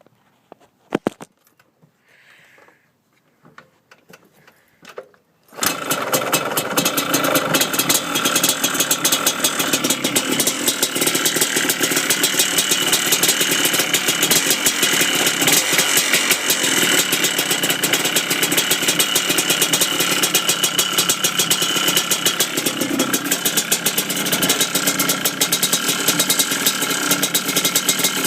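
A few clicks, then about five seconds in a Yamaha Blaster's 195 cc two-stroke single-cylinder engine starts and runs steadily with a rapid knocking rattle, which the owner suspects is piston slap.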